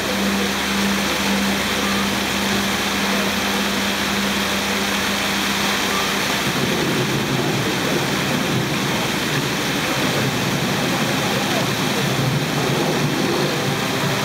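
Fountain water jets spraying and splashing into the basin, a steady rushing of water. A low steady hum runs under it for the first six seconds or so, then gives way to rougher low sound.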